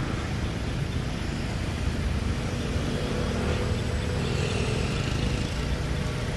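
Steady low rumble of motor-vehicle noise, with a faint hum that comes in about two seconds in and fades out after five.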